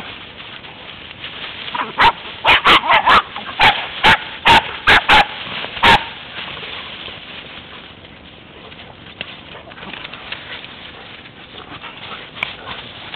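Playing puppies barking: a quick run of about ten short, sharp barks from about two to six seconds in, then quieter.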